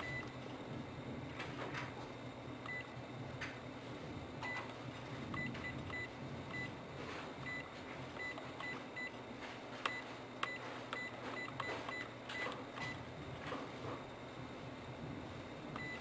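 VPC-100 handheld PIN code calculator beeping as its keypad is pressed: many short, high beeps, one per key press, with soft button clicks among them, as a code is keyed in.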